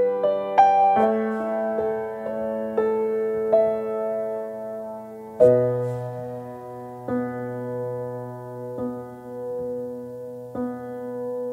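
Background piano music: single notes over held chords, with a deeper, fuller chord coming in about halfway through.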